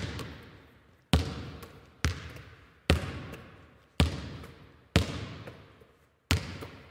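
A basketball bounced on a hard floor at an unhurried dribble, seven bounces about a second apart, each with a long, echoing decay.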